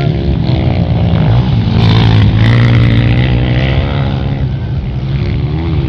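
Dirt bike engine running hard, its pitch rising and falling as the throttle opens and closes.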